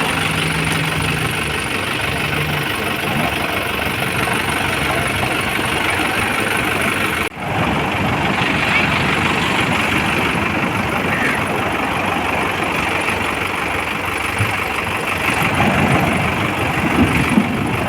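Fishing boat's engine running steadily. The sound drops out for an instant about seven seconds in, then carries on.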